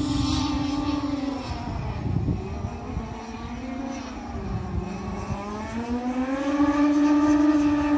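Radio-controlled model racing boat's engine running on the water during warm-up laps. Its steady, high-pitched note drops about one and a half seconds in as the boat eases off or turns away, then climbs back up around six seconds in as it speeds along the straight.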